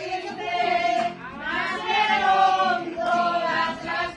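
A group of women singing together, with several long held notes.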